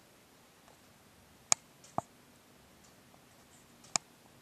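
Quiet room with three short, sharp clicks: two about half a second apart around a second and a half in, and one near the end.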